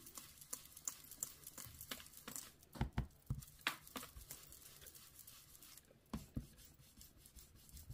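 Ink blending brush being dabbed and swirled over a stencil mask on paper: a soft, scratchy patter of bristles on the paper, with a few dull taps a little before three seconds in and again around six seconds.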